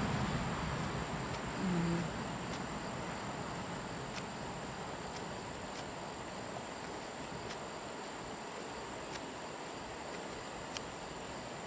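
Insect chorus, a steady high-pitched trill with faint ticks. A brief low hum comes about two seconds in.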